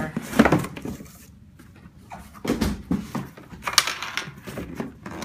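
Packaging rustling and crinkling in irregular bursts, with a few light knocks, as a pair of sneakers is lifted out of its box.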